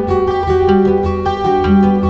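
Background music of plucked strings over a steady bass beat.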